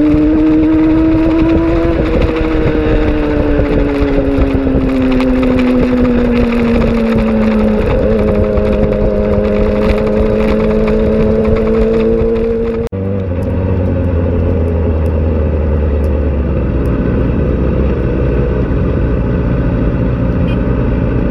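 Sport motorcycle engine running at road speed over wind rush. Its note rises for a couple of seconds, then slowly drops and holds steady. About two-thirds of the way through, a sudden cut switches to a lower, steadier engine rumble at slow speed.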